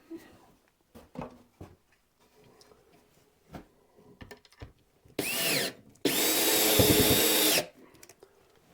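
A power drill driving screws: a short burst about five seconds in, then a longer steady run of about a second and a half. Before it, light knocks and handling of wood.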